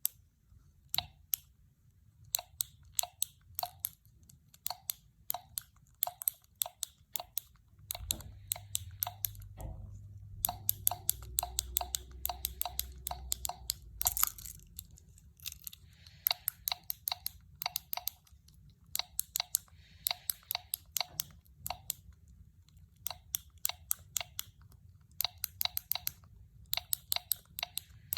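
Silicone push-pop bubble fidget keychain being pressed bubble by bubble: a long run of sharp little pops, a few a second, with short pauses between runs. A low handling rumble lies under the pops about a third of the way in.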